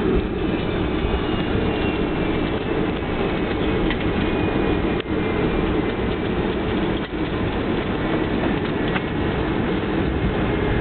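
Boeing 737-800 cabin noise during the landing rollout: a steady, deep rumble of the jet engines and wheels on the runway, with a faint high engine whine on top.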